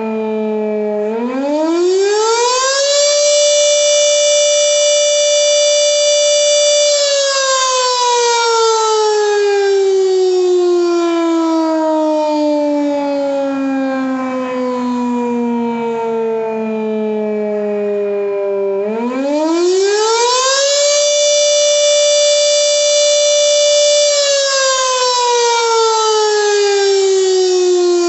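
H.O.R. Siro-Drone fire siren with a 10-port rotor, wailing on the attack signal. Its pitch rises for about two seconds, holds for about four, slides slowly down for about twelve, then rises again about two-thirds of the way through and holds before starting down near the end.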